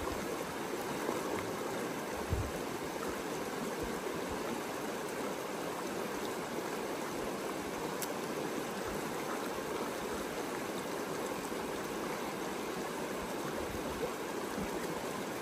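Shallow river running steadily over rocks and riffles: an even, unbroken rush of water.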